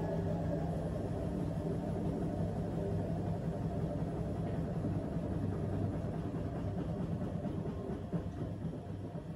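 AEG washing machine's drum spinning during an interim spin cycle, a steady hum and rumble that eases off slightly near the end.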